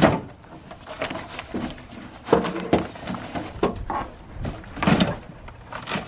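Folding camp chairs in nylon carry bags being shoved into a pickup bed: fabric rustling and scraping, with several sharp knocks as the chairs bump the bed and shell.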